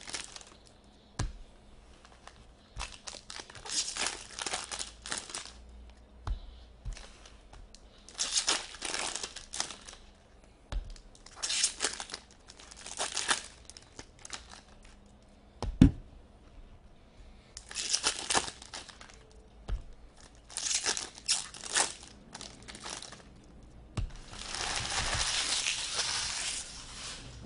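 Foil trading-card pack wrapper being torn open and crinkled by hand, in repeated short bursts of rustling with a longer crinkle near the end. A single sharp knock about sixteen seconds in is the loudest sound.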